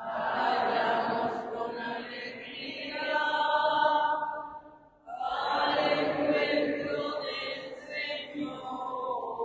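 Congregation singing the responsorial psalm refrain in unison, in two phrases with a short break about five seconds in, the voices blurred and echoing in a large church.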